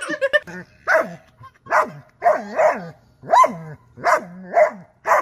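German shepherd barking over and over, about eight barks, each dropping in pitch.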